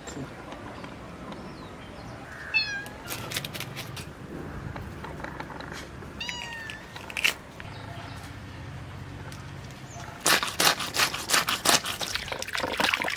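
A cat meows twice, once about two and a half seconds in and again about six seconds in. From about ten seconds in, a quick run of sharp scraping strokes, several a second, is the loudest sound.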